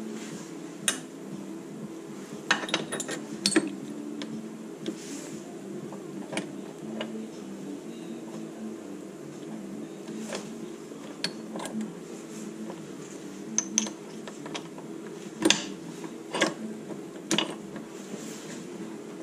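Small metal engine parts being handled and fitted into a motorcycle's aluminium crankcase half: scattered light clinks and taps, with a cluster about three seconds in and the loudest about fifteen seconds in, over a steady low hum.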